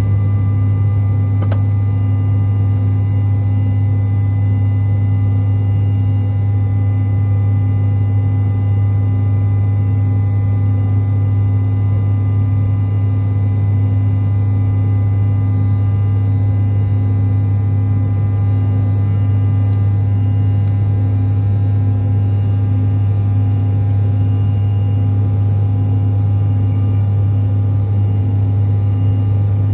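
Steady cabin drone of a CRJ-700 climbing out after takeoff, its rear-mounted General Electric CF34 turbofans at climb power. A loud, unbroken low hum with several steady whining tones above it.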